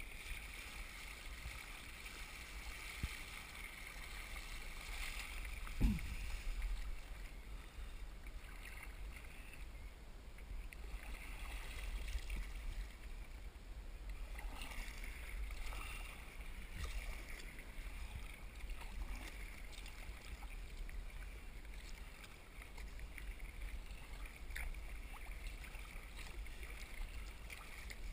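Sea kayak paddling in choppy water: paddle strokes and wavelets splashing and lapping against the hull, over a steady low rumble. A single thump about six seconds in is the loudest sound.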